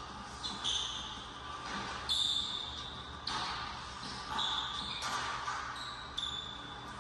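Basketball sneakers squeaking on a hardwood court as the players cut and drive, a string of short high squeaks, over a basketball being dribbled.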